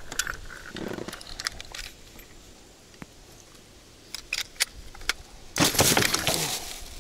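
Handling noises while weighing a freshly caught pike on a hand scale: scattered sharp clicks and rustles, a quiet spell in the middle, then a loud rustling burst in the last second and a half.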